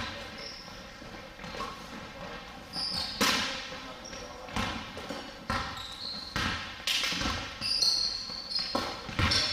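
Basketball bouncing on a hardwood gym floor as it is dribbled and passed up the court, in single sharp bounces about a second apart, with short sneaker squeaks now and then.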